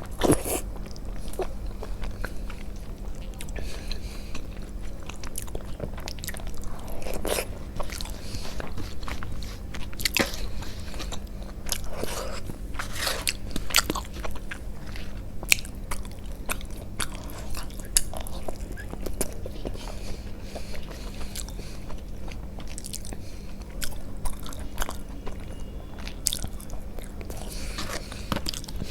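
Close-miked eating: chewing and biting with many short, sharp wet mouth clicks, over a steady low hum.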